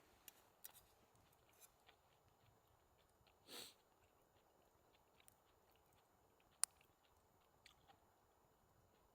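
Near silence, with scattered faint ticks, a soft brief rustle about three and a half seconds in, and one sharp click near the end.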